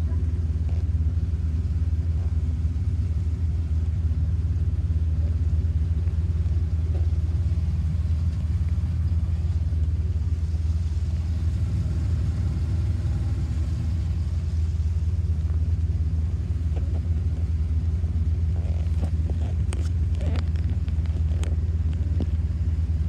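Boat motor running steadily underway, a low drone at an even pitch, with a few short knocks near the end.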